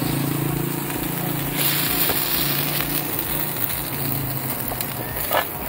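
Suadero (beef) sizzling in a frying pan, with a louder hiss about a second and a half in, over a steady low hum. A short clink near the end.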